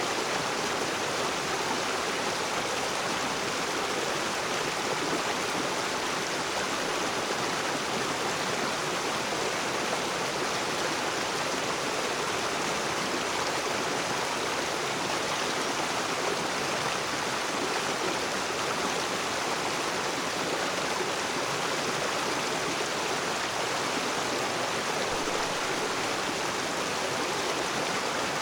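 Rocky river flowing over stones: a steady, even rush of water with no change through the stretch.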